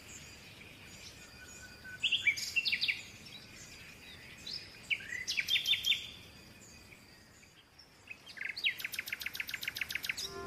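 Small songbirds chirping, high-pitched, in short bouts. Near the end comes a fast, even run of chirps.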